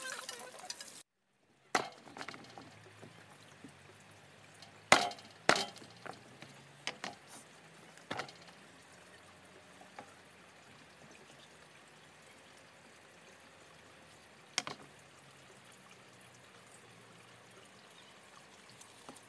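A plucked chicken being handled on a rack of bamboo slats: scattered sharp knocks and taps, the loudest two close together about five seconds in, over a faint low hum.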